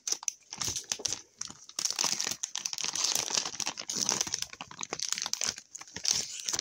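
Wrapper of a hockey card pack crinkling as it is handled and opened: a dense run of sharp crackles with brief pauses.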